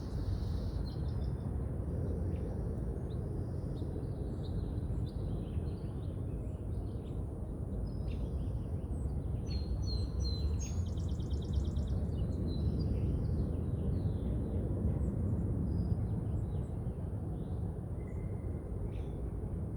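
Outdoor ambience: a steady low rumble of wind and distant city noise, with small birds chirping and calling on and off, including a quick rapid trill about eleven seconds in.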